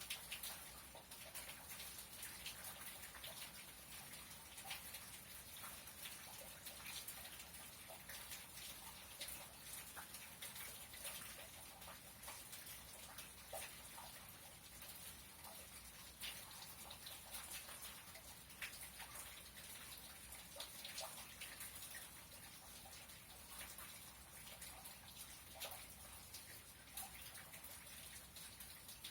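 Light rain: scattered raindrops and drips ticking irregularly over a faint steady hiss.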